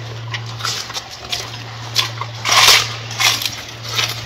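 Gorilla chewing crisp lettuce leaves: irregular crunching, crackling bites, loudest about two and a half seconds in. A steady low hum runs underneath.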